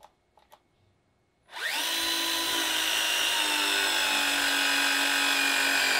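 Battery-powered pipe press tool crimping a fitting to cap off a gas pipe. Its motor starts about a second and a half in and runs steadily, its pitch slowly sinking as the jaws close under load.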